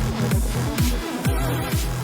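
Background electronic music with a steady beat and deep bass drops.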